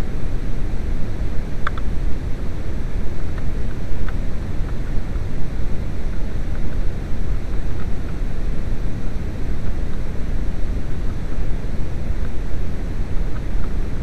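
Steady low rumbling noise, with a few faint light clicks from a screwdriver working at plastic steering-column trim.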